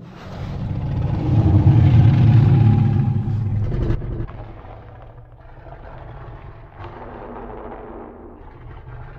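Godzilla monster sound effect: a loud, low rumble that builds over the first second or two and cuts off about four seconds in, followed by a quieter low rumble with faint pitched tones.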